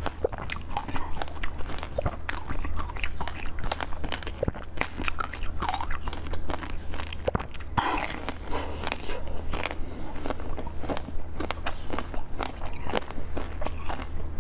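Close-up mouth sounds of a person biting and chewing a green filled bun, with dense wet smacks and clicks and a louder bite about eight seconds in. A steady low hum runs underneath.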